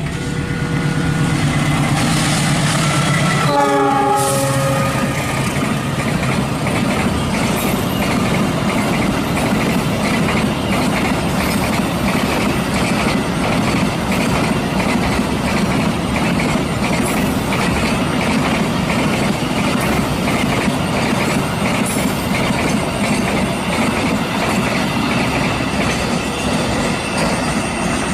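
A CC206 diesel-electric locomotive approaching with its engine running and its horn sounding the semboyan 35 signal. The horn and engine drop in pitch as the locomotive passes about four seconds in. Then the train's cars roll past, their wheels clattering over the rail joints.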